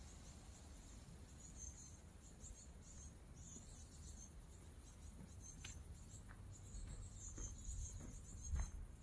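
Faint high-pitched insect chirping in short repeated bursts, over a low rumble of wind on the microphone. A few soft knocks, the loudest near the end.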